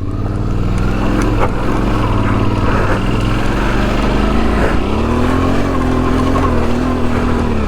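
Suzuki V-Strom 650's V-twin engine, fitted with a Delkevic exhaust, running hard under load as the bike pulls out of a muddy hole. It builds up over the first second, dips briefly about four and a half seconds in, then holds steady.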